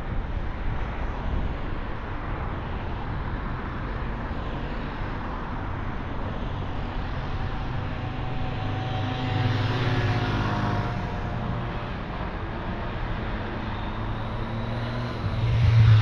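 Road traffic on a city street: cars driving past with a steady low rumble and tyre noise. One vehicle passes louder about ten seconds in, and a heavier low engine rumble rises near the end.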